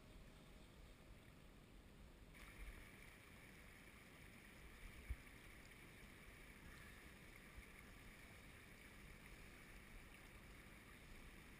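Faint, steady burble of a shallow brook running over stones, a little stronger from a couple of seconds in, with a low rumble of wind on the microphone. A single soft thump about five seconds in.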